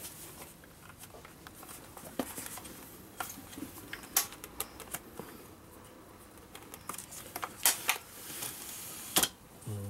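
Telesteps telescopic aluminium ladder being collapsed: irregular sharp clicks and knocks as the rung release buttons are pressed and the sections slide down and seat on one another, the sharpest near the end.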